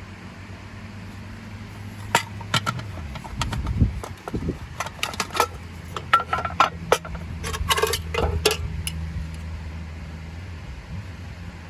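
Clinks and knocks of hard camp gear being handled, a quick cluster with some short ringing hits, over a steady low hum that drops in pitch about three seconds in.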